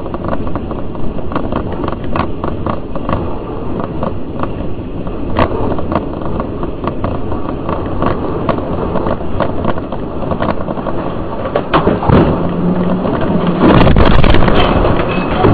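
Car driving on a wet highway, heard from inside through a dashcam: steady road and tyre noise with scattered sharp clicks. About fourteen seconds in it turns louder and harsher as wreckage and spray from a crashing airliner sweep across the road ahead.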